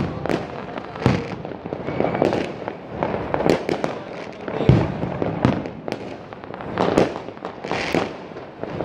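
Aerial fireworks bursting: a steady run of irregular bangs and crackles, with a few louder booms in the middle and near the end.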